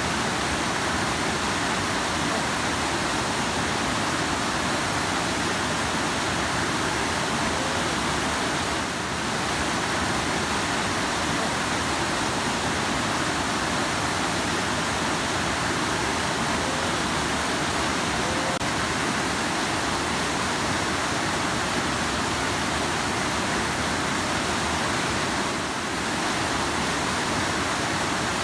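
Rushing river water: a steady, dense roar of flowing water, briefly dipping twice.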